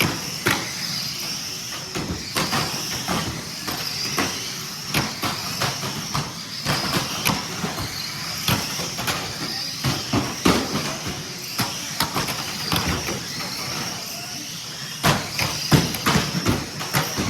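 Radio-controlled toy cars running: a high, wavering motor whine with frequent clicks and knocks.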